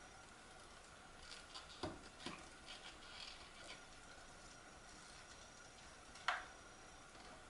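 Light clicks and taps from parts of a homemade fridge-compressor air compressor being handled, with one sharper knock about six seconds in, over a faint steady hum.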